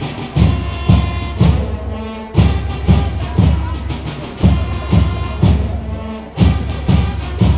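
Brass band playing: euphoniums and trumpets holding notes over a steady bass drum beat of about two beats a second.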